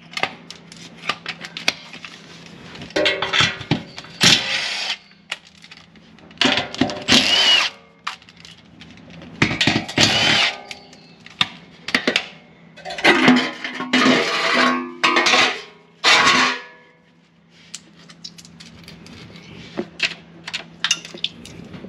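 Power tool spinning the 10mm nuts off a car's underbody heat shield in short bursts of a second or two, with a whining motor note that bends in pitch, and light clicks of metal parts between bursts.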